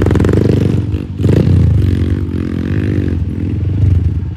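Trail (dirt) bike engine running and being revved, its pitch rising and falling with several blips of the throttle.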